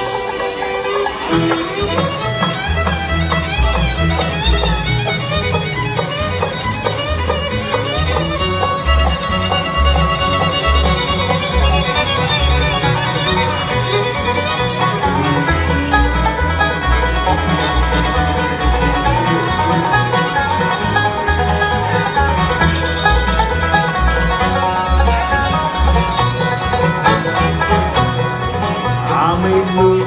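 Bluegrass band playing live with fiddle, five-string banjo, acoustic guitar and upright bass, the fiddle standing out over a steady plucked bass line.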